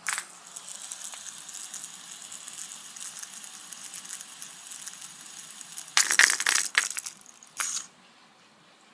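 A fidget spinner whirring steadily as it spins, then a loud burst of clattering knocks about six seconds in and one more a little later.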